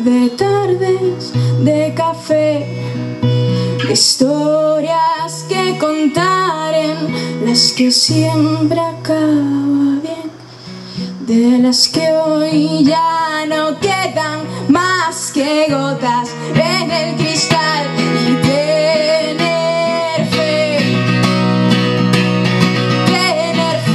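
A woman singing live while strumming an acoustic guitar.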